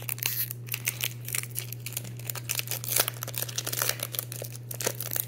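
Foil Pokémon booster pack wrapper crinkling in the hands, a dense run of irregular crackles, over a steady low hum.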